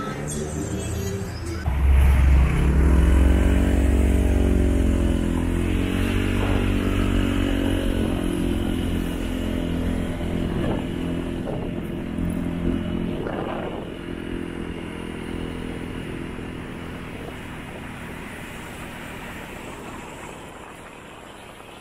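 Motorcycle taxi engine pulling away and accelerating, its pitch rising about two seconds in and again a few seconds later. It then cruises steadily, growing gradually quieter.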